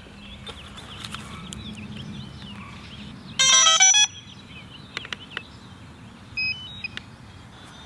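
Electronic beeps: one loud, bright beep lasting just over half a second about three and a half seconds in, then a couple of short higher beeps near the end. Birds chirp faintly in the background.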